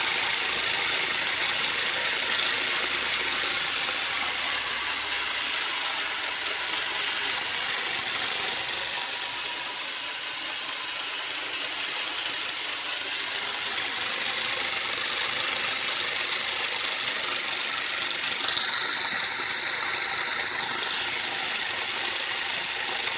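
Homemade twin-cylinder engine and motor rig running, a steady high whir with a light rattle. A higher whine joins for a couple of seconds near the end.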